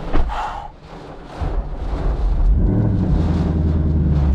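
A car door shuts with a thud just after the start. About two and a half seconds in, a Ford Mustang's V8 engine is started and settles into a steady idle.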